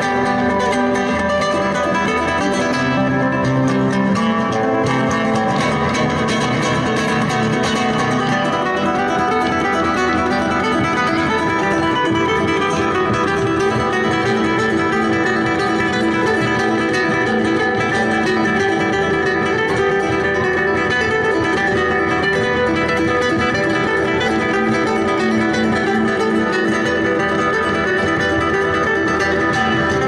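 Background music: acoustic guitar played in a flamenco style, with continuous picking and strumming.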